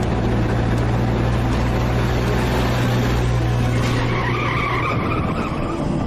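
SUV driving with its engine running steadily, then its tyres squeal as it brakes hard to a stop, about four seconds in. Music comes in near the end.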